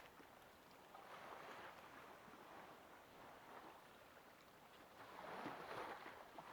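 Near silence with a faint wash of small waves at the shoreline, swelling a little louder about five seconds in.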